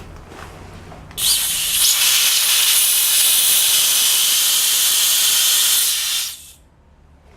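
Compressed air rushing out of a Hitachi Bebicon 1.5P-9.5V air compressor: a loud, steady hiss that starts abruptly about a second in, holds for about five seconds, then dies away quickly.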